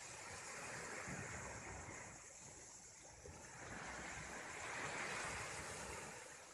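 Sea waves washing on the shore, swelling and ebbing over a few seconds, with wind on the microphone.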